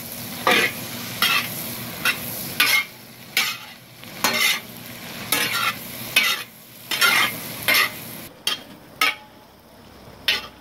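Long-handled metal spoon scraping and stirring sliced sausage in a cast-iron pot, about one or two scrapes a second, over the steady sizzle of the sausage frying and browning.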